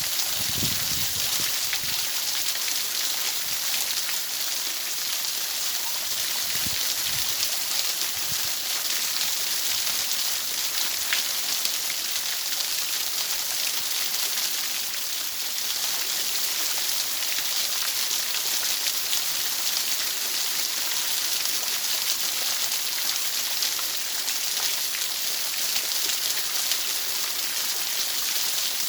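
Steady hiss of white noise, even and high-pitched, played as a tinnitus masker. A few faint low thuds sound under it in the first several seconds.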